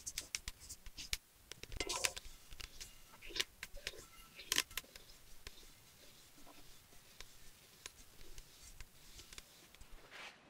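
Dry melon seeds roasting in an aluminium pot, rustling and scraping as a wooden spoon stirs them, with scattered faint clicks that thin out toward the end. The seeds are not yet done: they are roasted until they start popping.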